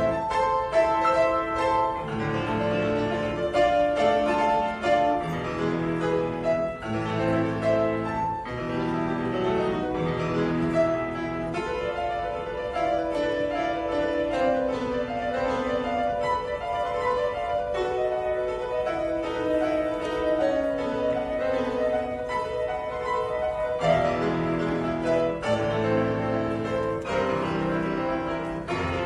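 Solo piano playing a classical-style piece, with chords in the bass under a melody. The middle part thins to a melody over a slowly descending bass line, and fuller chords return near the end.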